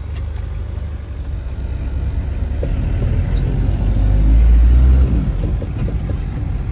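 Hindustan Contessa Classic's diesel engine rumbling as the car pulls away, heard from inside the cabin; the rumble builds up, is loudest about four to five seconds in, then eases off.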